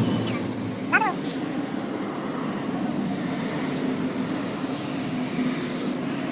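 Steady hum of road traffic, with a brief high, wavering falling cry about a second in.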